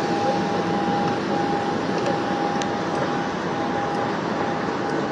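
Aircraft engine running on an airport apron: a steady rush with one constant high whine held throughout.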